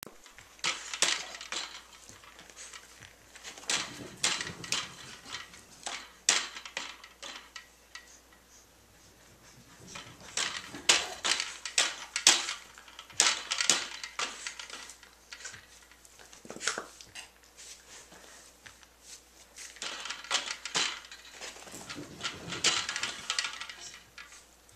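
Bursts of rapid light clicking and clattering as a dog noses at and knocks a baby's plastic spinning-top toy, with quieter pauses between the bursts.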